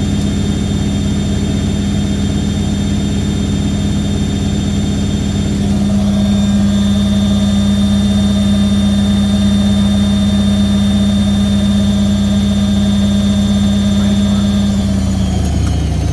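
Hoover A3190 Electron 1100 De Luxe washing machine spinning, its motor and drum giving a steady, loud hum. The hum steps up about six seconds in, and near the end its pitch falls as the spin speed changes.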